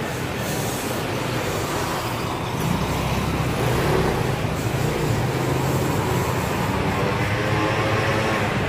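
Steady rushing of a portable gas burner's flame, with hot water poured from a kettle into a paper cup near the end.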